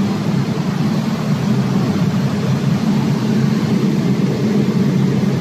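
Diesel generator set running steadily: an even, unbroken low engine drone.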